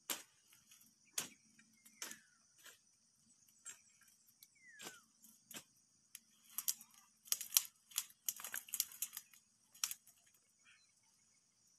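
Stems and dry stalks snapping and crackling as someone pulls at and pushes into thick brush: scattered single cracks at first, then a quick run of cracks near the end. A steady high insect drone runs underneath.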